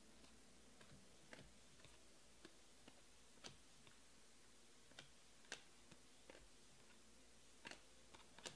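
Faint, irregular clicks of stiff chrome-finish trading cards being slid off a stack one by one, about fifteen in all, the loudest near the end.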